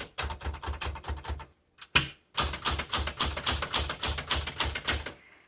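1977 Smith Corona Classic 12 manual typewriter being typed on, its keys striking at about four a second. The strikes break off briefly about a second and a half in, then run on.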